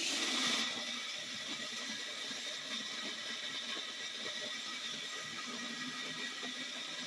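Electric grain grinder running steadily as it grinds hard, unsoaked whole corn, a constant mill whine with a grainy grinding hiss.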